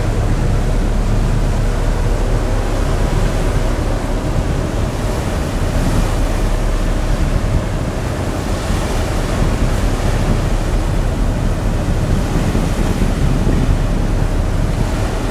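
Steady rumble of a ferry under way, with wind buffeting the microphone and the rush of choppy sea against the hull.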